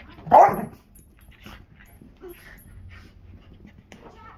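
A dog gives a single short, high-pitched yip about a third of a second in. Only faint scattered sounds follow.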